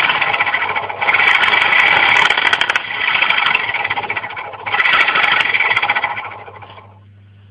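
Small homemade electric motor running with a loud rattling buzz in surges, strongest about a second in and again near five seconds, then dying away before starting up again at the end. A steady low hum sits underneath.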